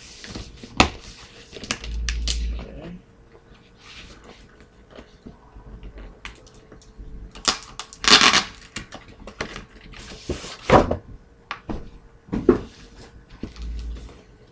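Cardboard product box being handled and opened: scattered taps and clicks, scraping and rustling as it is turned and slid, with a few dull thumps.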